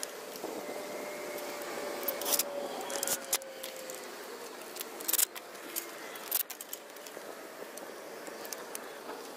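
Hand-repair work noises: scattered sharp clicks and small metallic handling sounds over a faint steady background hum.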